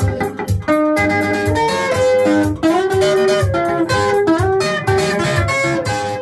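Instrumental band music: a guitar picking a melody over bass and a steady drum beat.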